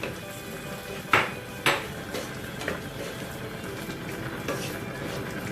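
Cooking utensil stirring in a pan of cream sauce, scraping and clinking against it, with two sharper knocks a little over a second in.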